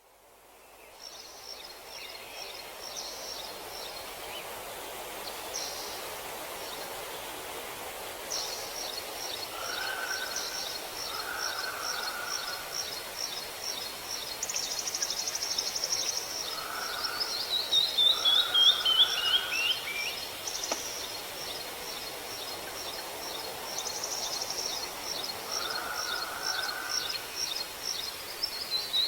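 Forest ambience with several songbirds singing over a steady background hiss: long trains of quick, high chirps, and twice a run of notes stepping downward in pitch, with softer, lower calls in between. The sound fades in over the first second or two.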